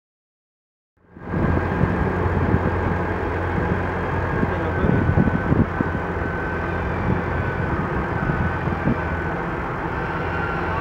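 Diesel engines of New Holland tractors running steadily under load while ploughing, with a low hum and a faint high whine; the sound comes in abruptly about a second in.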